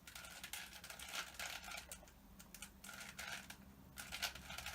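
Rubik's Cube being turned by hand: a run of quick plastic clicks as its layers are twisted, irregular, with a brief lull about two seconds in.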